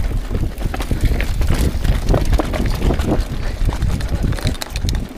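Mountain bike clattering and rattling as it rolls fast over rock slabs and loose stone, a rapid uneven run of knocks over a steady low rumble of tyres and wind on the mic.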